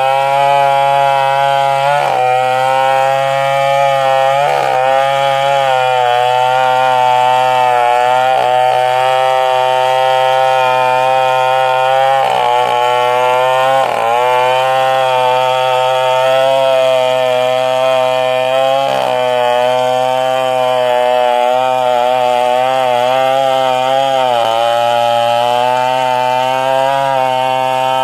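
Stihl chainsaw running flat out under load, sawing through a coconut palm trunk. Its steady high pitch dips briefly now and then as the chain bogs in the cut, then picks up again.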